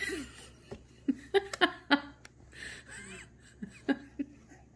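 Baby giggling in short, quick bursts: a run of about four about a second in, then about three more near the end.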